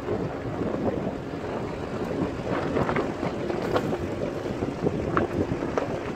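Wind buffeting the microphone over the low rumble of a vehicle travelling on a gravel road, with scattered small clicks and ticks.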